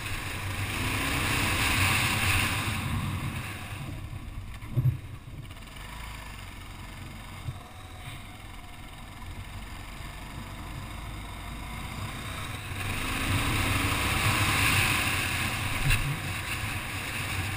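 Kawasaki KLR650 single-cylinder engine running under way on a dirt trail, mixed with wind buffeting on the microphone. It grows louder near the start and again after about 13 seconds, quieter in between, with a brief thump about five seconds in.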